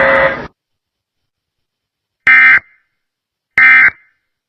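Two short bursts of Emergency Alert System digital data tones, the harsh buzzy end-of-message code, each about a third of a second long and a little over a second apart. The preceding alert audio cuts off about half a second in, followed by silence before the first burst.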